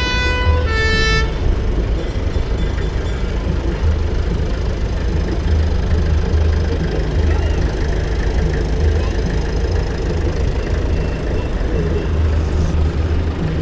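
Vintage tractor engines running with a low, steady, pulsing rumble as the tractors drive slowly past. A two-note horn toot ends about a second in.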